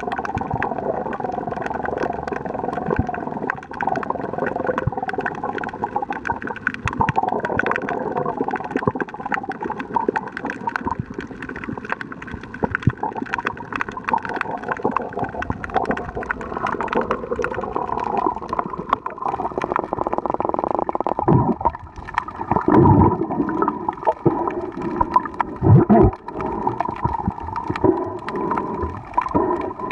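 Underwater sound picked up by a camera in its housing: a muffled, wavering drone with a fine steady crackle of clicks, and several louder rushes of water or bubbles in the last third.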